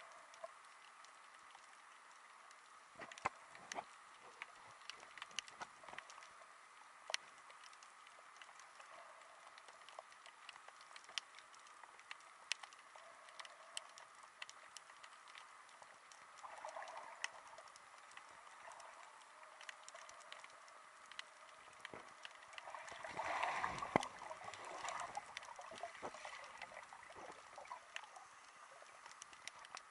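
Faint underwater ambience heard through a submerged camera: scattered sharp clicks and crackles over a low hiss, with two louder whooshing swells of water movement in the second half.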